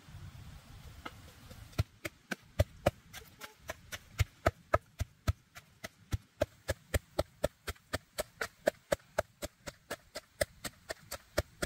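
Wooden pestle pounding chilies in a wooden mortar: sharp wooden knocks in a steady rhythm of about three a second, starting about two seconds in.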